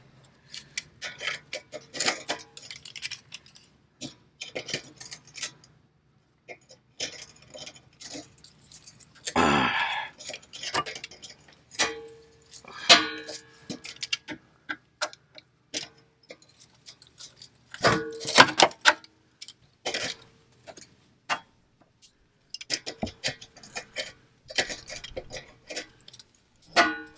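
Metal hand tools clinking, tapping and knocking against the exhaust pipe and fittings, some strikes with a short metallic ring, with a short hiss about ten seconds in.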